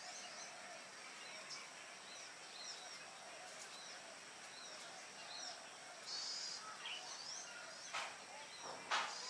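Morning bird chorus: many short, high chirps and whistles from several birds over a steady outdoor hiss. Near the end come two louder, harsher sounds about a second apart.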